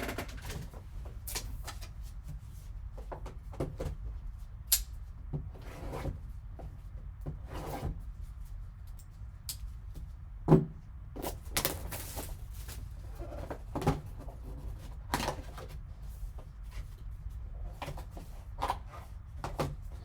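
Handling of trading-card box packaging: scattered clicks, taps and rustles of cardboard and plastic, with a few sharper knocks, as the box is opened and its contents handled.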